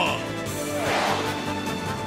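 Background music from a toy commercial, with a rush of noise that swells and fades about a second in.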